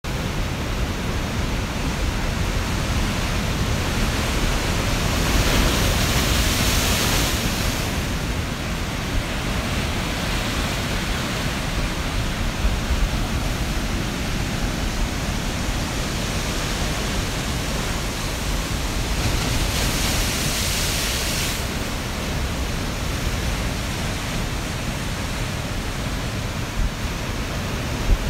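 Ocean surf breaking and washing over shoreline rocks: a continuous wash of white water, swelling louder twice as bigger waves come in.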